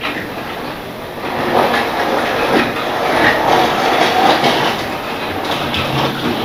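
Model train running on the layout's track, its wheels clicking over the rail joints, getting louder about a second in.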